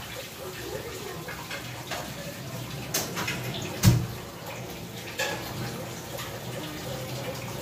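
Persian cat chewing raw fish: soft clicks and smacks over a steady hiss, with a loud thump about four seconds in.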